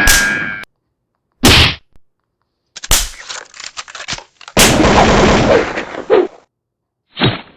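A string of edited-in sound effects separated by silence: sharp gunshot-like bangs and hits, a rattle of rapid clicks about three seconds in, a longer noisy stretch from about four and a half to six seconds, and a last short hit near the end.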